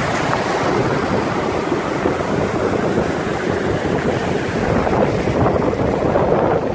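Surf breaking and foamy seawater washing over a pebbly shore, with wind buffeting the microphone.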